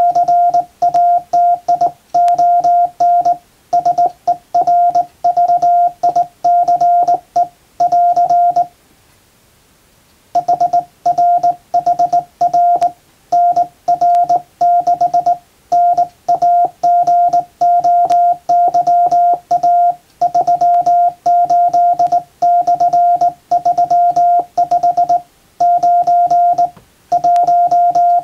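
Hand-sent Morse code: a steady, single-pitched tone switched on and off in dots and dashes by a JRC KY-3A straight key, sending an English-language telegram. The keying stops for about a second and a half near 9 seconds in, then resumes.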